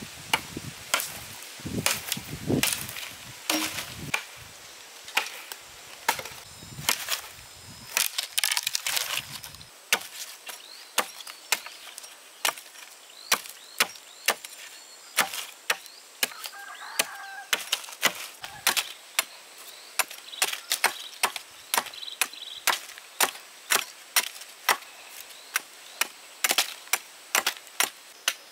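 Repeated sharp strikes of a hand tool on wood, like chopping or knocking, about one to two a second. The first third has heavier, denser thuds. After that the blows come crisper and more evenly spaced.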